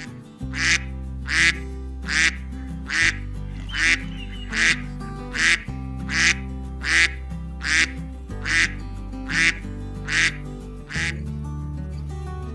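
Domestic duck quacking over and over, about fourteen short quacks evenly spaced roughly one every 0.8 s, that stop about 11 seconds in, over steady background music.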